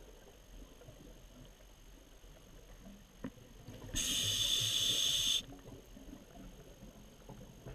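Underwater: a burst of hissing air from a diver's breathing gear, about a second and a half long, a little past halfway, over a low murmur. One faint click comes shortly before it.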